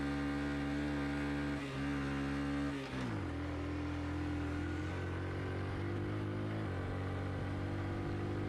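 A Honda Super Cub C50's small four-stroke single-cylinder engine labours up a steep hill at walking pace. About three seconds in, its note falls, then it runs on steadily at the lower pitch.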